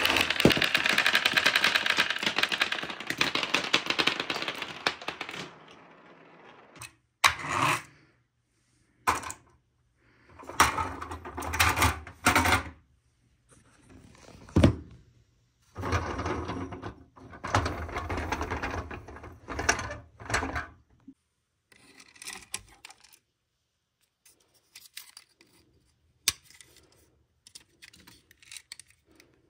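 Glass marbles rolling and clattering down a wooden marble-run slope and dropping onto a hard surface, a dense rattle of many small clicks for the first few seconds. Then come separate runs of rolling and rattling with sharp knocks, and near the end only a few faint clicks.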